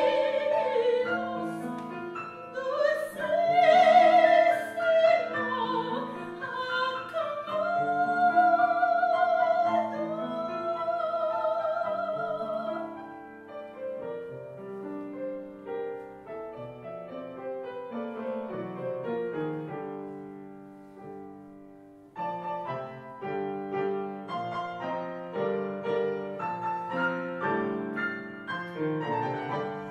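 A soprano sings a classical art song with a wide vibrato over grand piano accompaniment. About halfway through the voice stops and the piano plays on alone, dying down briefly and then coming back with a busier passage.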